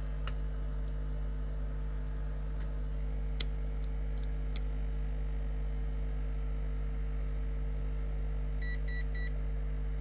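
Microwave oven transformer driven with a 50 Hz tone from an audio amplifier, humming steadily at a low pitch. Near the end, three quick electronic beeps.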